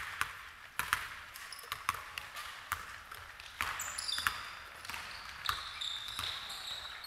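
Basketball thudding on a wooden gym floor at irregular intervals, with short high-pitched squeaks of sneakers on the court in the second half, in a large echoing sports hall.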